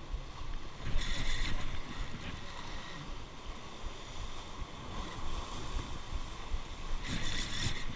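Sea waves washing against rocks with wind buffeting the microphone. A Ryobi Virtus spinning reel whirs in two short spells of cranking, about a second in and near the end.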